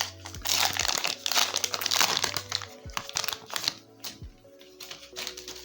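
Plastic crinkling and rustling as trading cards and their packaging are handled, dense for the first three seconds or so and then sparser. Steady background music plays underneath.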